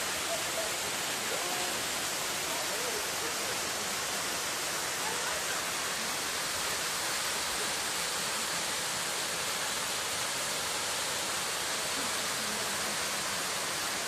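Waterfall rushing steadily, water falling down a rock face and splashing into a pool below, as an even hiss with no breaks.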